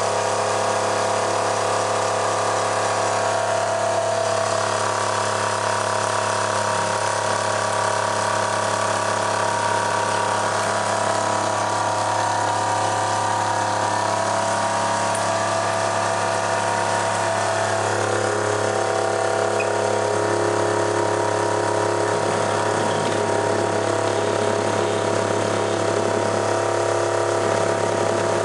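Electric drive motor spinning an automotive alternator on a test bench: a steady mechanical whine and hum with a rattle. The tone shifts a few times as the load on the alternator changes.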